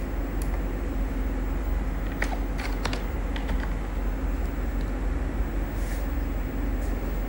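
A few scattered computer keyboard keystrokes, short sharp clicks while a file name is typed and edited, over a steady low hum.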